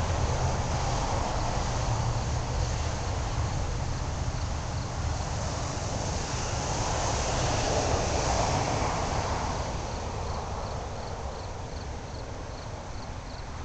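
Steady outdoor background noise with a low rumble. In the second half, a faint high chirp repeats about three times a second, as of a cricket.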